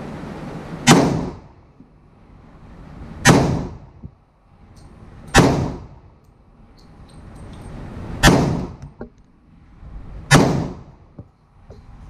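Five gunshots from a Glock 31 .357 SIG pistol in a CAA Micro Conversion Kit carbine chassis, fired slowly about two to three seconds apart as a five-shot group, each with a short ring-off.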